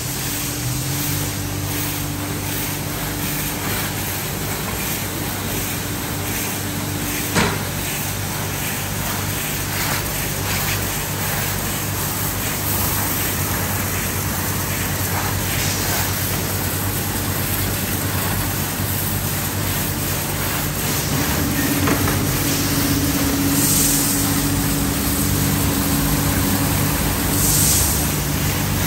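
High-pressure water jets of a tunnel car wash's spray arch and wheel blasters hitting a car, a dense steady hiss over a steady machinery hum. A single sharp knock about seven seconds in, and two brief louder bursts of spray near the end.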